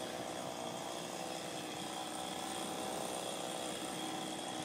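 Faint two-stroke chainsaw running steadily.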